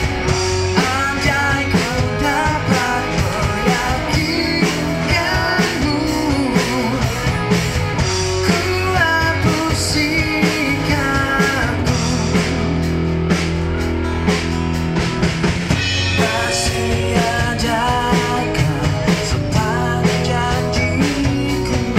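Live amplified busker band: a man singing into a microphone over electric guitar and a steady rock beat, played through a PA speaker.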